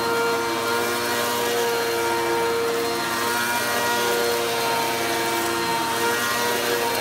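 Upright bagless vacuum cleaner running while pushed over a shag rug: a steady motor whine made of several constant tones over a rushing of air.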